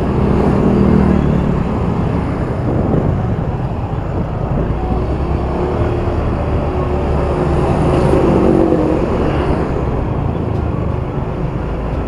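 Motorcycle engine running as the bike rides along a street, with road and traffic noise; the engine note shifts with the throttle and is highest about eight seconds in.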